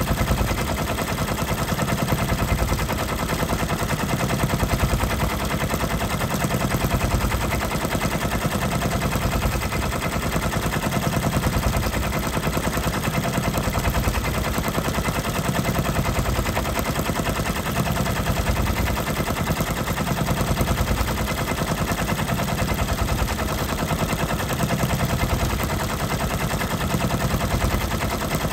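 Brother multi-needle embroidery machine stitching at speed, a fast, steady needle clatter as it sews the fill of a rose design.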